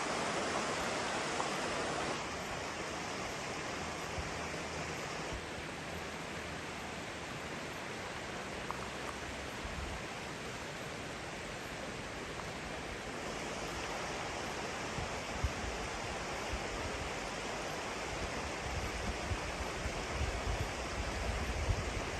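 Flowing water rushing steadily, a stream or small waterfall, with no bird calls standing out. The level drops slightly about two seconds in, and low rumbles come and go near the end.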